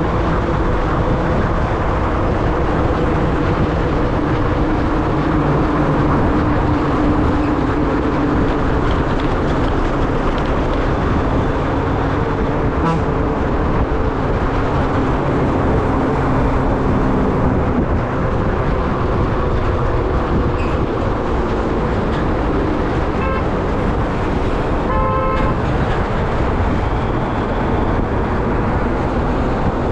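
Vehicle engine and road noise while driving along a highway, the engine note drifting slowly. A vehicle horn honks briefly near the end.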